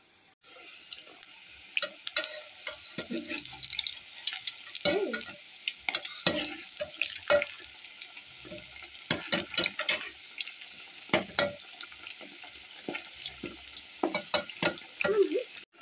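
Meatballs deep-frying in hot oil with a steady sizzle, while a slotted metal spoon turns them, clinking and scraping against the aluminium pot in irregular sharp clicks.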